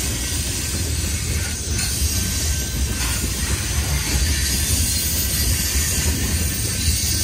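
Freight train of covered hopper cars rolling past, with a steady rumble of steel wheels on the rails.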